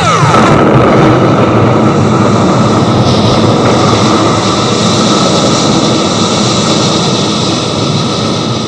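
A loud, steady, jet-like rushing roar with a few faint held tones, fading slowly toward the end.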